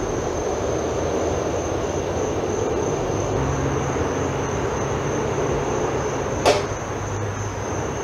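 Steady outdoor background hum and hiss with a constant high-pitched whine over it, and one sharp click about six and a half seconds in.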